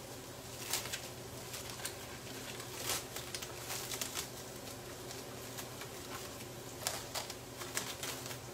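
Plastic mushroom packaging being unwrapped by hand: scattered crinkles and light clicks, a few louder ones here and there, over a low steady hum.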